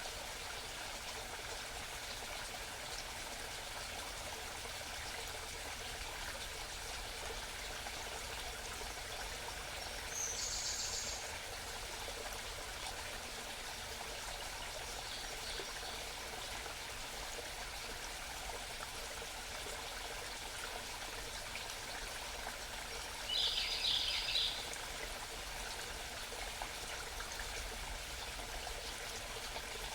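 Small mountain stream babbling steadily, with a few short, high wild bird calls over it, the loudest about two-thirds of the way through.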